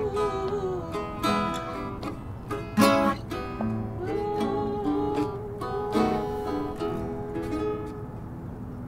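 Guitar playing the closing instrumental bars of a song, plucked notes and strummed chords, which die away about eight seconds in, leaving a steady low background hiss.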